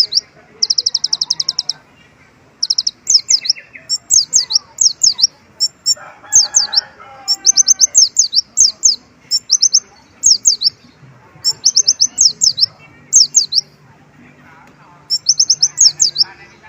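Brown-throated sunbird (kolibri ninja) singing a high, rapid song in short bursts of fast trills and quick down-slurred notes. The bird has been taught white-eye (pleci) phrases and works them into its song.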